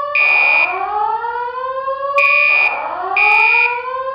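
Simulated voice-evacuation fire alarm tones: a slow whoop that rises in pitch over about two seconds, heard twice, overlaid with a higher steady beep in a code-3 temporal pattern. One beep sounds at the start, then two more about a second apart from about two seconds in.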